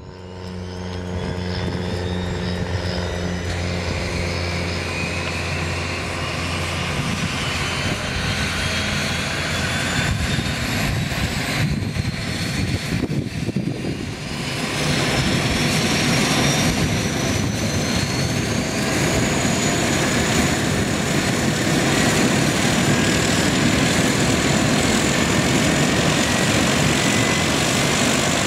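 Beechcraft King Air C90B's Pratt & Whitney PT6A turboprop starting: a turbine whine slowly rising in pitch as the engine spools up, over a steady low hum for the first several seconds. It gets louder about halfway through.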